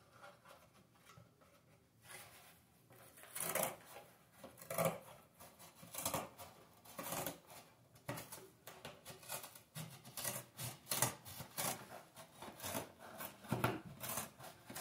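Irregular light clicks, knocks and rattles from cats playing with a cardboard box and a plastic ball-track toy.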